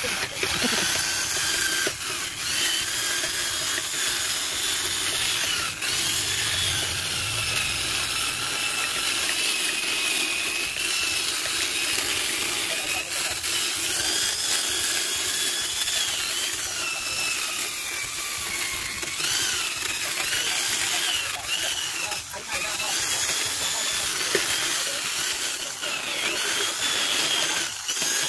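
Small corded electric rotary tool with a thin disc attachment running at high speed against carved wood. It makes a continuous high whine over a gritty hiss, and the pitch dips and rises again and again as the disc bites into the surface and is eased off.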